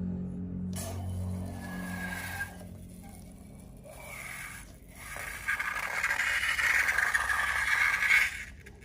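Slime being scraped and worked, giving a noisy scraping and rubbing sound that gets louder about halfway through and stops abruptly just before the end.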